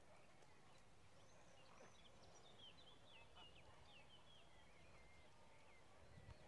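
Near silence: faint outdoor background noise, with a small bird singing a quick run of short, high chirps from about two seconds in until near the end.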